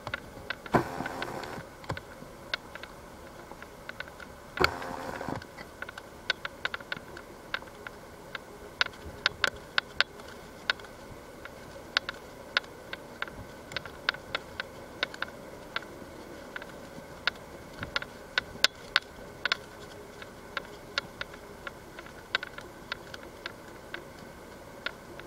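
Typhoon raindrops striking a hard surface close to the microphone in sharp, irregular ticks over a steady storm background, with two short noisy bursts about one second and five seconds in.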